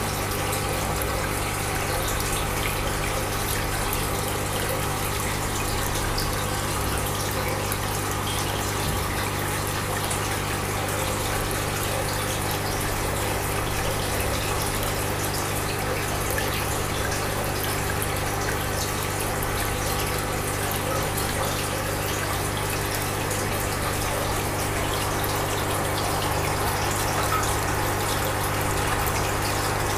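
Aquarium filter or pump running: a steady rush of moving water over a constant low hum.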